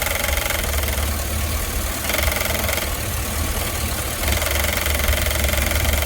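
Electronic throttle body on a GMC 6.0-litre V8 making a fast buzzing rattle over the steady idle, swelling and easing every second or two; it almost sounds like a fan hitting something. The mechanic takes it for the throttle body's stepper motor vibrating as it keeps trimming the throttle blade to hold idle, on a warm engine, and suspects a defective throttle body.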